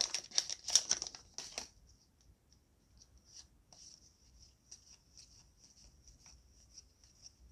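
Rapid crackling and crinkling of a trading-card booster pack's foil wrapper and cards being handled, for about the first second and a half. Faint scattered clicks and rustles of cards being flipped and sorted follow.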